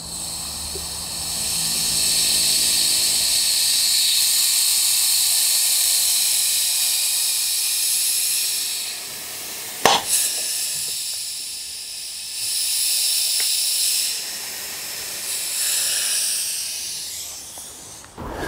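Air-powered sealant gun hissing as it squeezes out a bead of Sikaflex polyurethane sealant. It hisses in one long run of about nine seconds, then in shorter stop-start runs, with a sharp click about ten seconds in.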